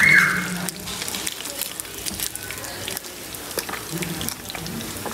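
Masala-marinated fish steaks shallow-frying in hot oil in an iron kadai: a steady crackling sizzle, with a brief louder noise at the start as a perforated steel skimmer works the pieces.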